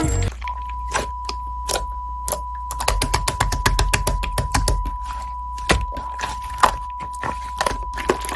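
An uneven run of light clicks and knocks, several a second, with a few louder knocks in the second half, over a thin steady high tone.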